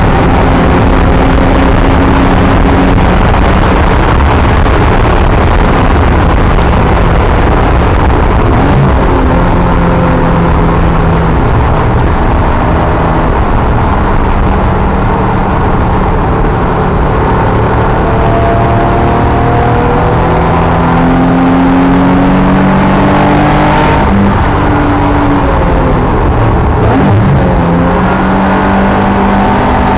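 Nissan 370Z's 3.7-litre V6 heard on board at racing speed, over loud wind and road noise. The engine pitch falls and rises repeatedly as the car brakes from the straight, changes gear and accelerates through the corners.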